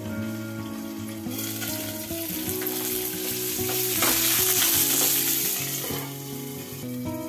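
Mustard seeds, curry leaves and asafoetida sizzling and crackling in hot oil in a covered pan. The sizzle turns loud and bright a little over a second in, once the lid is off, and dulls again near the end as the lid goes back on.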